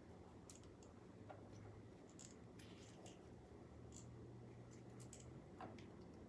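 Near silence with faint, irregular clicks and taps from items being handled, over a low hum that stops near the end.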